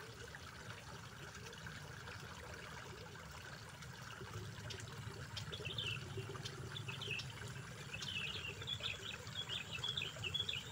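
Quiet outdoor background hiss, with a small creature's high chirping coming in about halfway through and repeating in quick short runs.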